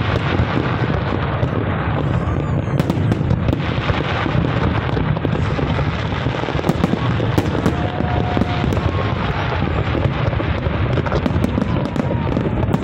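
Large fireworks display: rapid, overlapping bangs and crackling from bursting aerial shells, dense and unbroken throughout.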